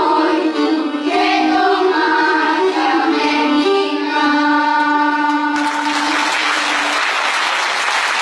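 Mixed choir singing with bowed Pontic lyras (kemenches), ending on a long held low note. About five and a half seconds in, the audience breaks into steady applause over the last of the note.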